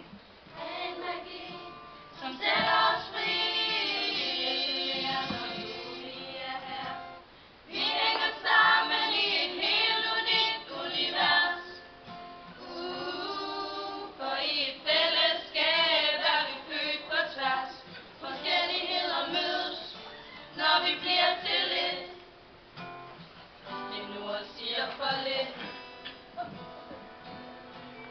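A group of young female voices singing a song in Danish with an acoustic guitar accompaniment, with short breaks between phrases.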